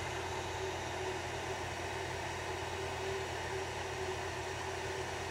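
Cheap hot air rework station blowing steadily: a constant rush of air with a low hum from its handpiece fan, heating the solder on a 0-ohm surface-mount resistor to lift it off the circuit board.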